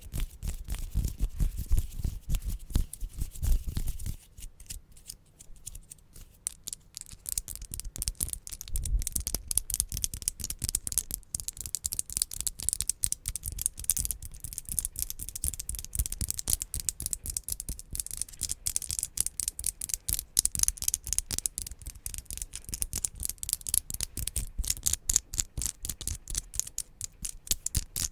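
Fast ASMR trigger sounds made close to the microphone: rapid tapping with deeper thumps for the first few seconds, then a long run of quick, crisp high clicks and scratches, several a second.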